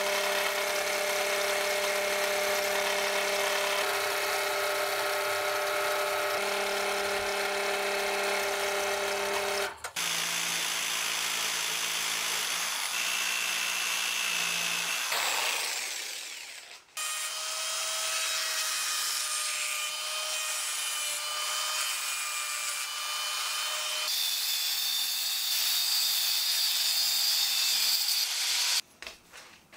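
Power tools working steel in three steady runs. First a drill press drilling a steel piece held in a vise, with a steady hum. About a third of the way in, a jigsaw cutting metal takes over, then a little past halfway an angle grinder with a cut-off disc cuts a steel block, its whine stepping higher partway through and stopping suddenly just before the end.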